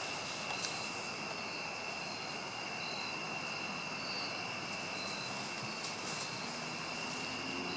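Steady rushing background noise with a continuous high-pitched whine, and short higher chirps repeating about once a second.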